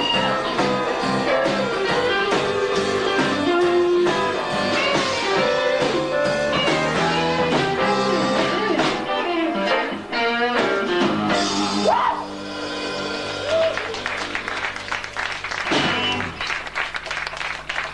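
Live rock band playing, with electric guitars prominent over bass and drums. The music thins out and gets quieter about twelve seconds in.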